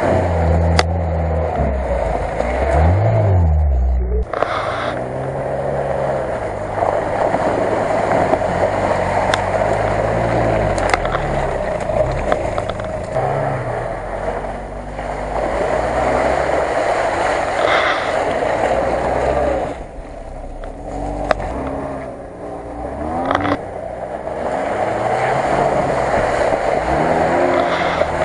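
Lada Niva 4x4 engines revving up and falling back again and again as the cars churn through deep mud ruts, over a steady rushing noise.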